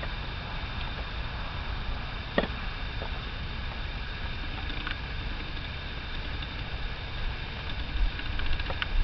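Steady low rumble of wind on the microphone, with a few small knocks and clicks, the sharpest one about two and a half seconds in.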